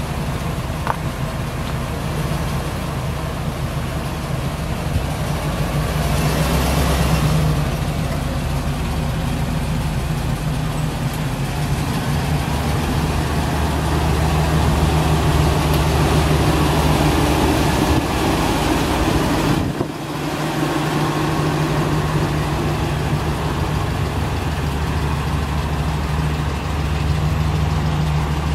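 1998 Chevrolet 3500 pickup's 5.7-litre V8 idling steadily.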